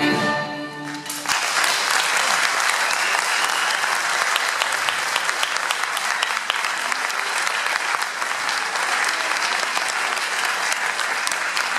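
A string orchestra's final held chord, cut off about a second in, followed by steady audience applause.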